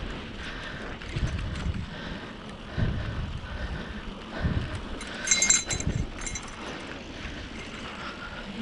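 Bicycle riding over a rough dirt trail: tyres rolling and the bike rattling and knocking over bumps, loudest and most clattery about five to six seconds in.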